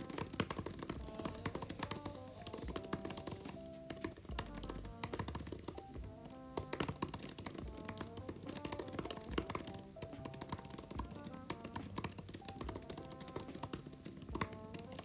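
Fast, continuous typing on an Apple Magic Keyboard for iPad, its scissor-switch keys clicking in quick succession, with background music playing throughout.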